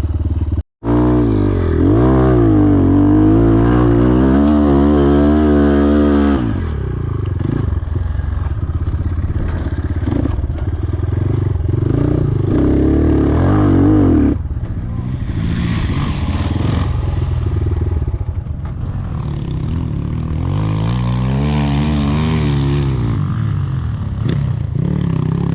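Enduro motorcycle engine under way, its revs rising and falling with the throttle, in two stretches of changing revs: one early on and another around twenty seconds in. Between them it runs steadier, and the level drops suddenly about fourteen seconds in. There is some clatter and scraping from riding over rough ground.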